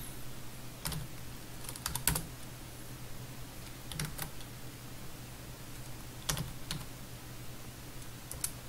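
Computer keyboard typing in short bursts of a few keystrokes, with pauses between the bursts.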